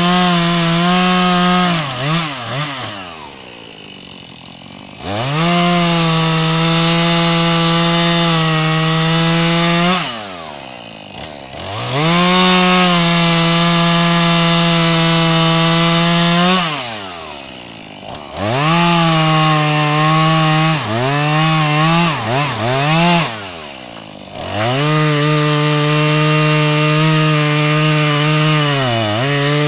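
Gas chainsaw cutting through red oak, its engine held at full throttle through each cut and falling back to idle four times between cuts, with a few quick throttle blips partway through.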